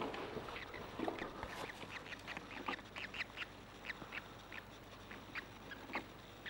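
Baby grebe chicks peeping while feeding: a rapid run of short, high calls, several a second.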